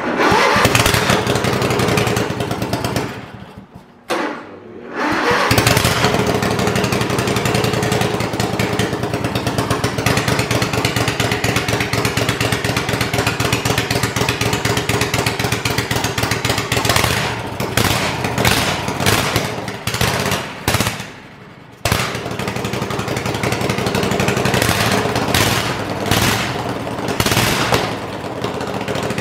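Kohler Command 22.5 hp V-twin engine on a garden tractor running rough. It cuts out about three seconds in and catches again a couple of seconds later. It runs unevenly and cuts out once more about twenty-one seconds in, then restarts at once. The stumbling comes from water-contaminated bad fuel still being run through it.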